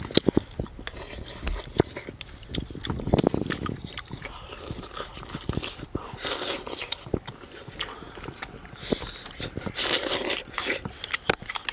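A person eating soup and rice off a wooden spoon: chewing and slurping close up, with sharp clicks throughout and louder slurping bursts about six and ten seconds in.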